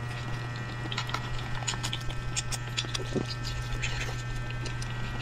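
Scattered small clicks and scratches from food being peeled with a knife and eaten, over a steady low hum.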